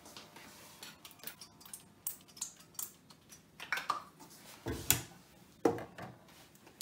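Light kitchen handling noises at the stove: a string of small clicks and knocks as things are moved about the hob and worktop, getting louder and sharper in the second half.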